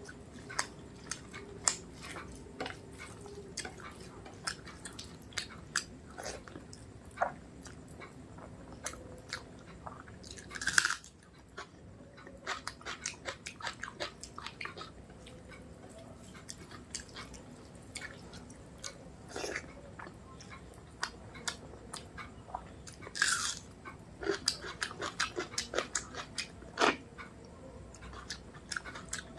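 Close-miked chewing and eating of rice and mutton curry: many small mouth clicks, with two longer, louder sounds about 11 and 23 seconds in.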